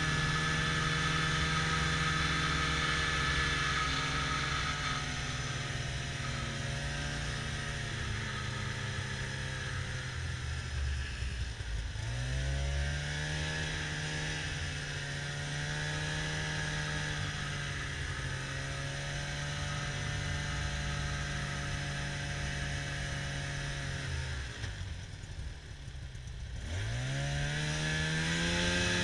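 Snowmobile engine running at a steady cruising speed. The throttle is eased off twice, about twelve seconds in and again about twenty-five seconds in, the engine note dropping and then climbing back as it speeds up again.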